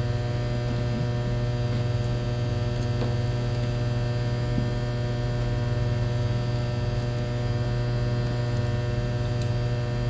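Steady electrical mains hum with a ladder of overtones, typical of energised switchgear. A few faint taps come through as insulated screwdrivers are slotted into the pockets of a fabric tool bag.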